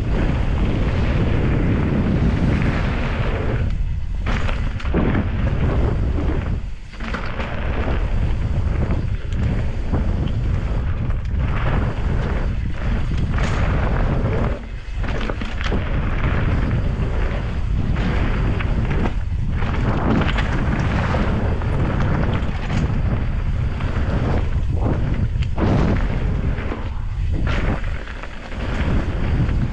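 Heavy wind buffeting on an action camera's microphone during a fast downhill mountain-bike run, a constant low rumble broken by frequent knocks and rattles from the bike over rough trail.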